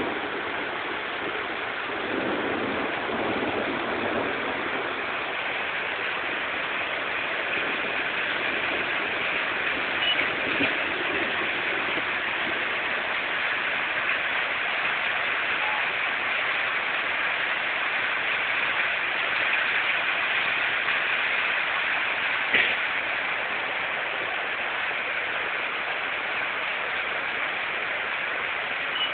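Floodwater running down a street: a steady rushing hiss of moving water. One sharp knock about three-quarters of the way through.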